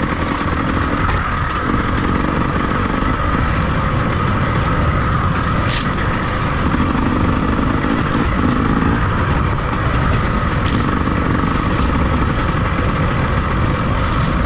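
A vehicle engine running steadily over rough noise, with no change in pace.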